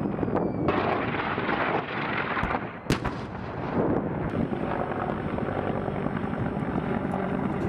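A steady loud rumble of engine or rotor noise with a single sharp bang of weapons fire about three seconds in.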